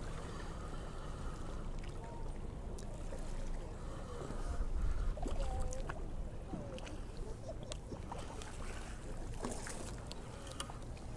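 Wind rumbling on the microphone and water lapping in the shallows, with a few faint short chirps in the middle and scattered small clicks.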